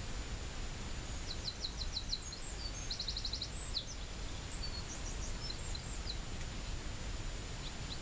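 A small songbird singing: a phrase of high, rapid trills and scattered quick notes starting about a second in and stopping around six seconds in, with a couple of single notes near the end. Underneath runs a steady low rumble of outdoor background noise and a faint constant high whine.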